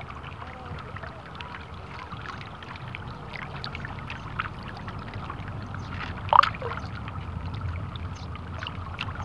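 Small waves lapping and sloshing close to the microphone over a steady low rumble, with many small irregular splashes and one louder slap about six seconds in.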